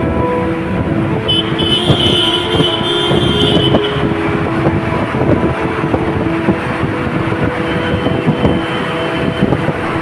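Busy street traffic with vehicle horns sounding. A high-pitched horn blast starts about a second in and holds for about two seconds.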